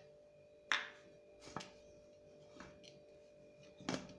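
Kaviraj aluminium pressure cooker lid being unlocked and lifted: four short metal clicks and knocks, the last and loudest near the end, over a faint steady hum. The cooker has cooled, so no steam hisses out.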